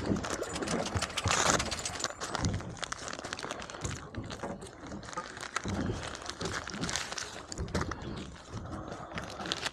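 Plastic packs of frozen bait crinkling and rustling as they are handled, with scattered small clicks and knocks.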